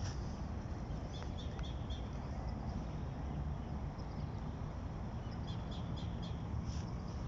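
A bird calling in two runs of about four quick, high notes, the first about a second in and the second about five and a half seconds in, over a steady low background rumble.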